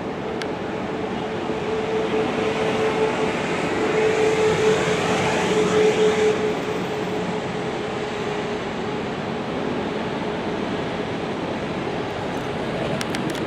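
Road traffic. A vehicle with a steady whine passes close by, loudest about four to six seconds in, then fades back into a steady traffic hum.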